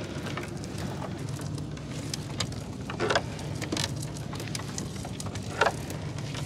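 Wet gill net being hauled by hand into a wooden boat, water dripping and pattering off the mesh with scattered small splashes and knocks, loudest about three seconds in and again near the end. A steady low motor hum runs underneath.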